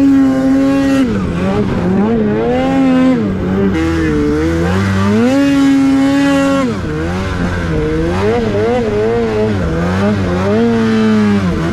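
Polaris 850 twin-cylinder two-stroke snowmobile engine breathing through a Sled Shed Cooker Thing silencer, revving up and down with the throttle as the sled is ridden through deep snow. The pitch rises and falls over and over, and holds high for a second or so past the middle before dropping off.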